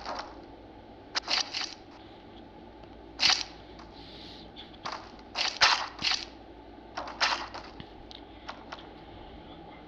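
Irregular short clicks and knocks in small clusters of two or three, a few every couple of seconds, over a steady background hiss.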